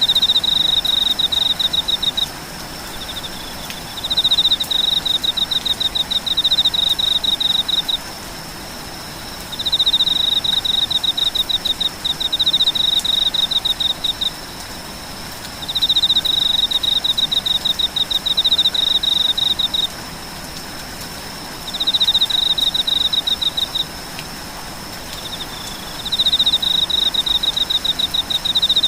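A calling insect repeating a loud, rapid pulsed trill in bursts of two to four seconds, about every six seconds, over a steady high-pitched drone.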